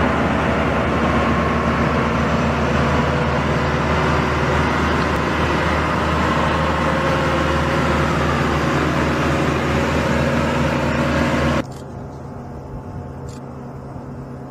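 Engine of an aircraft tow tractor running steadily while it tows a helicopter. The sound cuts off abruptly about three-quarters of the way in, leaving a much quieter steady hum.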